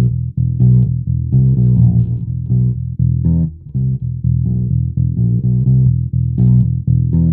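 Short-scale fretless electric bass played through a small VOX practice amp, with no effects: a steady line of plucked notes, about three or four a second.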